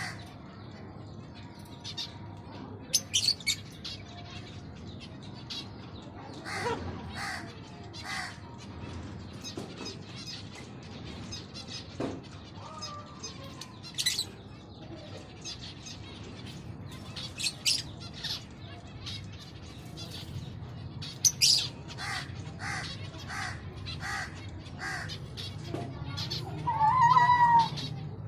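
Finches chirping in short, sharp calls scattered irregularly, with a louder wavering call near the end.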